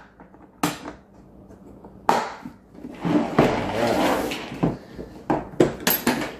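Hard plastic clicks and knocks as a compartment organizer box and small items are handled on a wooden tabletop: a few separate knocks, a stretch of rustling in the middle, then a quick run of clicks near the end.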